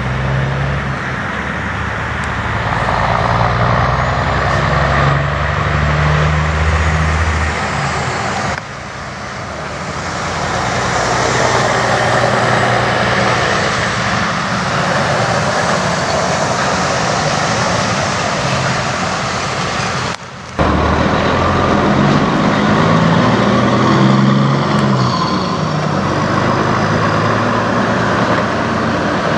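Diesel semi trucks on wet, slushy pavement: a low engine note at first, then the broad rush of a tractor-trailer's tyres passing close by, then a diesel tractor pulling a tanker, its engine pitch shifting as it moves off. The sound changes abruptly twice.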